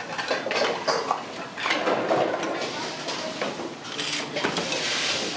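Pots, pans and metal utensils clattering in a commercial kitchen, with a spell of hissing about four seconds in.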